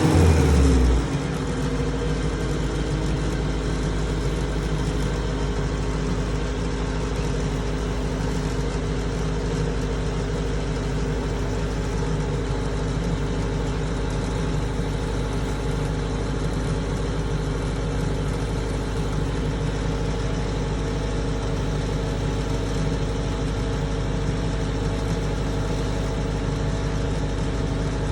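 Combine harvester running steadily, a constant engine drone with an even whir; a louder low rumble eases off about a second in.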